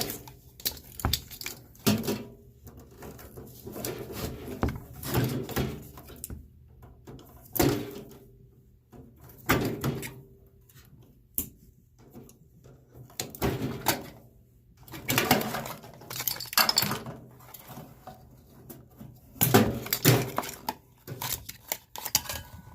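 Irregular metal clanks, knocks and clatter of microwave oven parts being handled and taken apart on a workbench, some with a short ring.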